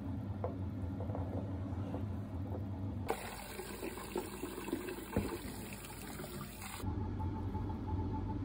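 Eggs bubbling in a pot of boiling water on the stove, with a low hum under it. About three seconds in, cold tap water pours hard into the pot of boiled eggs in a steel sink for nearly four seconds, then stops, leaving the hum and a faint high pulsing tone.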